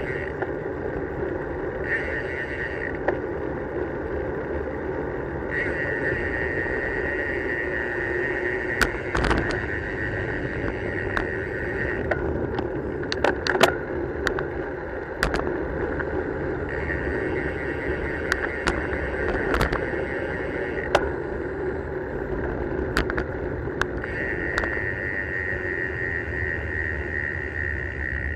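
Wind and tyre noise from a road bicycle rolling on tarmac, picked up by a camera mounted on the bike. A freewheel hub buzzes in long stretches while the rider coasts, and scattered sharp clicks and knocks come through.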